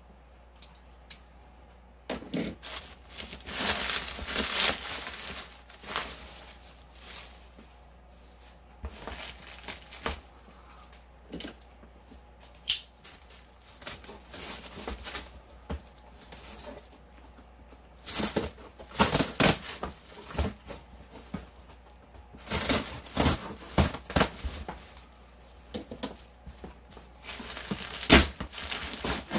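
Bubble wrap crinkling and rustling as it is handled and the tape holding it is slit and torn, in irregular bursts with quiet pauses between.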